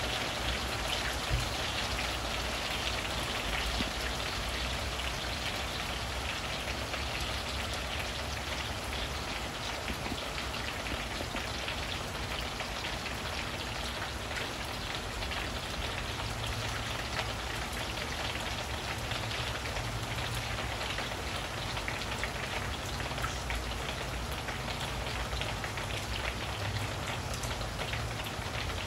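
Steady rain falling on tree leaves and the roof overhead: an even hiss made of many fine drop ticks.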